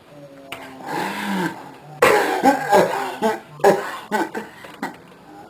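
A person in a hard coughing fit: a strained voiced sound about a second in, then a run of loud hacking coughs, several in quick succession.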